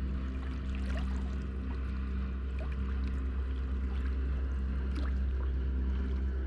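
Sea water splashing and trickling, with many small crackling drips, over a steady low hum.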